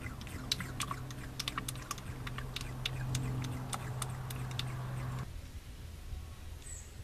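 Motor oil being poured from a bottle into a funnel: the bottle glugs as air gulps back in, an irregular run of sharp clicks and gurgles over a low steady hum. It all cuts off abruptly about five seconds in, leaving only faint ticks.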